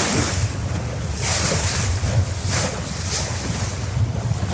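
Wind buffeting the microphone over open sea, with a low steady rumble and water rushing and splashing in repeated surges.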